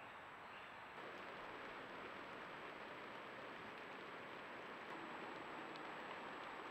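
Steady hiss of background noise from a camera trap's recording, with a faint steady high whine; the hiss steps up slightly about a second in.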